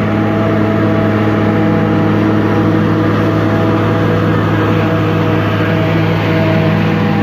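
John Deere 4250 tractor's six-cylinder diesel running steadily under load, powering a John Deere 3970 pull-type forage harvester chopping rye. A loud, even engine drone with a constant mechanical rush from the harvester over it.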